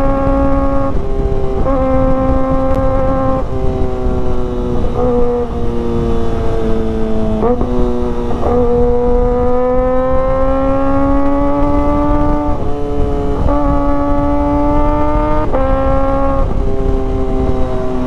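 Kawasaki ZX-25R's 250 cc inline-four engine running hard under way, its high-pitched note jumping abruptly at gear changes every second or two and climbing slowly for several seconds in the middle. Heavy wind rush on the microphone lies under it.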